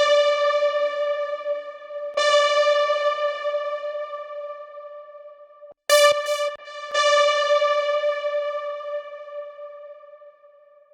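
A software synthesizer playing the same single bright note four times, each strike held and slowly fading. A short click cuts in just before the third note, about six seconds in.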